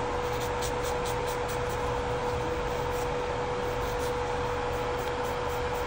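Nail-table dust collector fan running steadily: an even rush of air with a constant motor hum.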